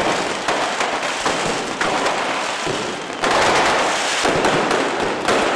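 Hogueras bonfire monuments burning, with dense, continuous crackling and popping of fire and firecrackers; it swells louder a little past halfway.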